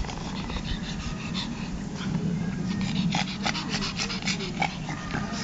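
Pug puppy making small mouth and nose noises: irregular quick soft clicks, coming thickest about three to four and a half seconds in, over a steady low hum.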